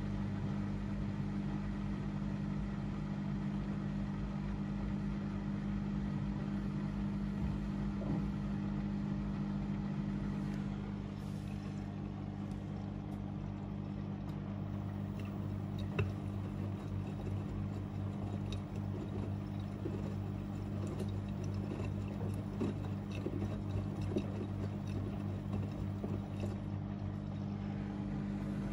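Two front-loading washing machines, an AEG Öko-Lavamat 88840 and a Miele Novotronic W 985 WPS, running an easy-care wash: a steady motor hum with a few faint clicks and knocks.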